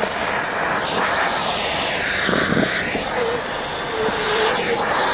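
Shark vacuum cleaner running steadily, its nozzle sucking up dust and debris from a glass tabletop.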